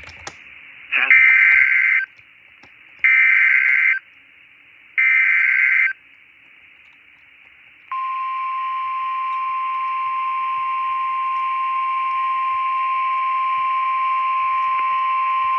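NOAA Weather Radio Emergency Alert System alert heard over a radio stream. Three short bursts of screechy SAME digital header data come about two seconds apart, then a steady single-pitched 1050 Hz warning alarm tone starts about eight seconds in and holds. The sequence signals a severe thunderstorm warning.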